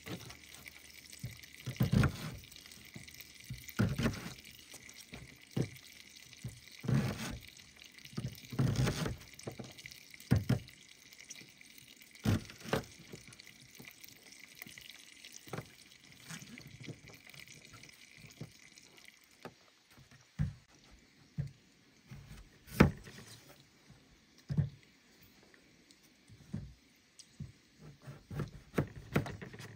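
Santoku knife chopping an onion on a plastic cutting board: crunchy cuts and knocks of the blade on the board, several seconds apart at first, then quicker, lighter cuts toward the end as a carrot is cut.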